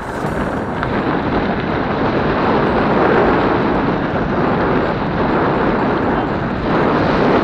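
Wind buffeting the microphone of a helmet-mounted action camera on a moving mountain bike: a loud, steady rumbling rush with no distinct sounds in it.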